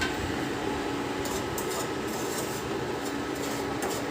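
Induction cooktop heating a pot of milk: a steady hum and hiss with a few faint light ticks from the pot.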